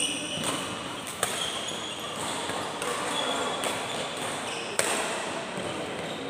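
Badminton rally: rackets striking the shuttlecock with sharp smacks, the loudest about a second in and again near five seconds in, with shoes squeaking on the court mat over the steady din of a busy hall.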